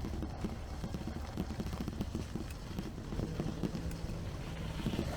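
Riding a bicycle: a steady low rumble and irregular knocking from the wheels rolling over rough ground, with wind on the microphone. A short low hum comes in a little past halfway.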